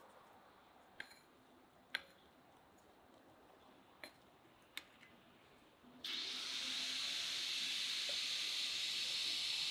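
A wooden spatula tapping four times on a perforated metal steamer tray as dumplings are slid off it; about six seconds in, a loud steady hiss sets in suddenly and holds.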